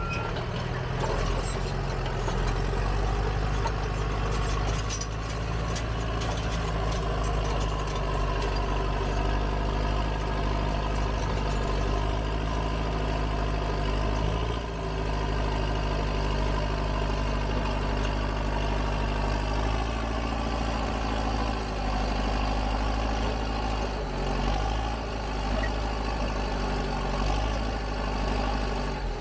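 Heavy diesel engine of a large logging machine running steadily, its note shifting a little now and then.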